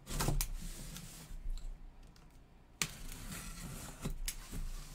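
Gloved hands handling a cardboard box: scraping and rustling of cardboard, with a sudden louder scrape about three seconds in.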